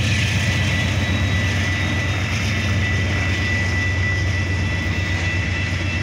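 Canadian Pacific freight train rolling through a level crossing: a steady low rumble of boxcars passing, with a thin steady high-pitched tone over it.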